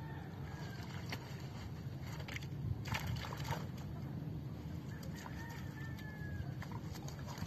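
Splashes and drips of pond water as a mesh shrimp trap and a scoop net are lifted and handled, with a few brief splashy crackles around three seconds in, over a steady low rumble. A few faint bird calls are heard around the middle.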